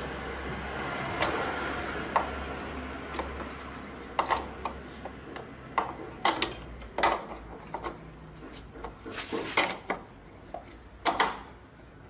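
A spanner and metal parts clinking and knocking in irregular sharp clicks as bolts on an engine mount bracket are worked loose, over a steady low hum.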